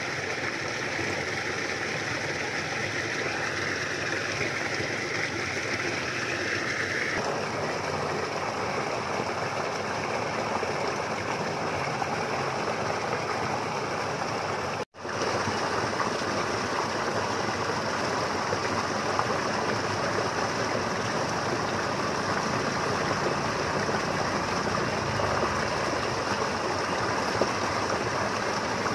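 Steady rushing outdoor noise of wind and water at the lake's edge, with a higher hiss that stops about seven seconds in and a brief break halfway through.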